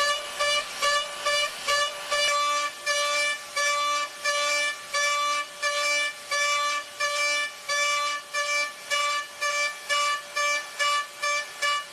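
Background music built on one pitched note repeated in a quick staccato rhythm, about three to four notes a second with some held longer, and a lower note joining a couple of seconds in.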